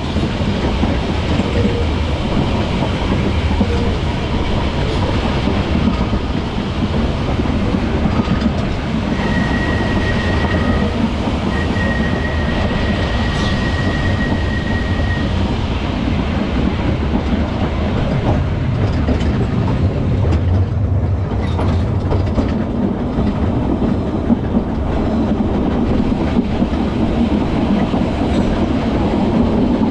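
Manx Electric Railway vintage electric tram running along the narrow-gauge line, a steady rumble of wheels on rail heard from on board. A thin high squeal comes in about nine seconds in and holds for about six seconds.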